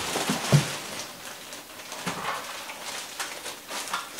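Clear plastic bag wrapped around a heavy metal exhaust fan crinkling and rustling as the fan is lifted out of a cardboard box and handled, with a thud about half a second in.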